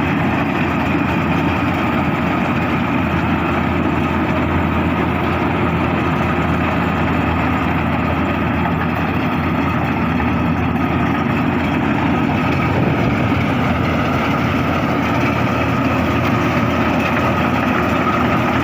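Firman FCH1207 rice combine harvester running steadily, a continuous engine and machinery hum that stays at an even level.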